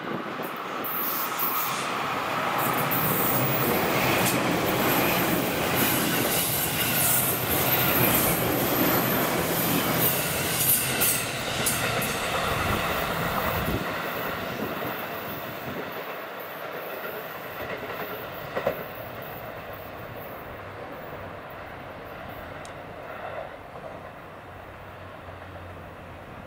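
JR Kyushu 811-series eight-car electric train passing on a curve, the wheels running over the rails with bouts of high squeal. It is loudest for about the first dozen seconds and then fades as the train draws away.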